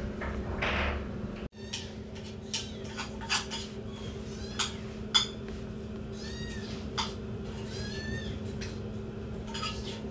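Very young tabby kitten crying with a few short, high, arching meows, mostly in the second half. Several sharp clicks come between the cries, over a steady low hum.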